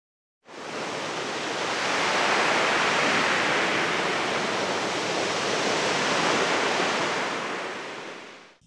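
A steady rushing noise, like surf or rushing air, with no rhythm or tone in it. It fades in about half a second in, swells gently, and fades out just before the end.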